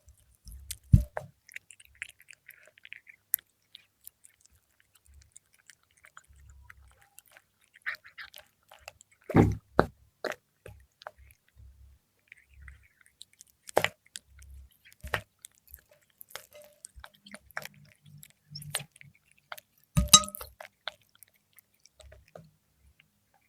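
Cat chewing fried milkfish, wet smacking and crunching bites at an irregular pace with a few sharper loud bites.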